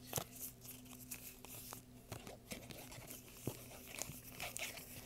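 Close-up ASMR handling of a deck of playing cards: irregular soft clicks, taps and crackles, at no steady rhythm, over a faint steady hum.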